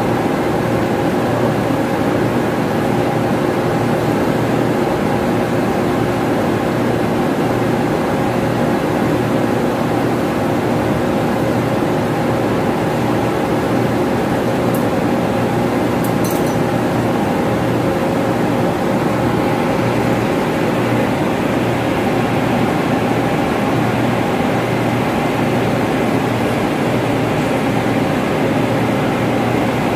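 Steady, loud drone of running ventilation machinery, an even hum with several constant tones. A couple of faint ticks about halfway through.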